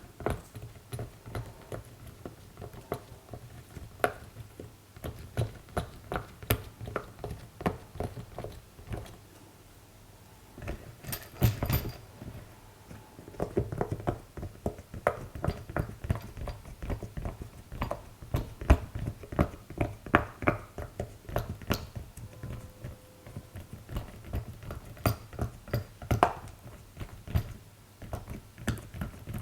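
Silicone pop-it fidget toy bubbles being pressed, giving many quick soft pops and clicks in irregular runs. There is a short pause about nine seconds in, and a brief rustle around eleven seconds.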